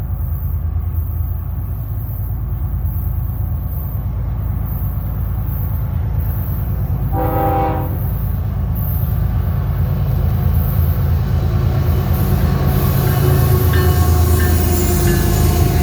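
GE ES44AC diesel locomotives of a freight train running with a steady low engine rumble, sounding one short horn blast about seven seconds in. The rumble grows louder and wheel-on-rail noise builds toward the end as the train draws nearer.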